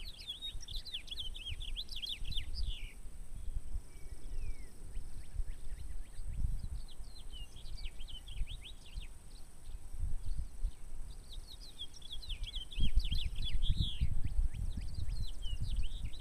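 A songbird sings phrases of quick chirping notes every few seconds, over wind gusting on the microphone. The wind gets stronger near the end.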